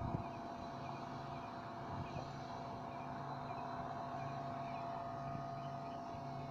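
Railroad crossing warning bell ringing steadily as the crossing signals activate, with a faint low hum pulsing on and off about once a second underneath.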